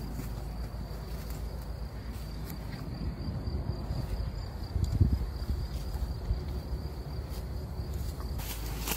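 Horses grazing, tearing and chewing grass with scattered short clicks, over a steady high insect trill; a low thump about five seconds in.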